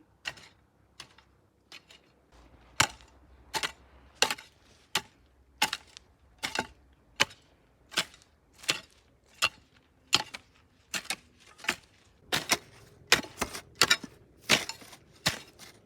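Garden hoe chopping into soil and weeds: a sharp strike about every three-quarters of a second, coming a little faster near the end.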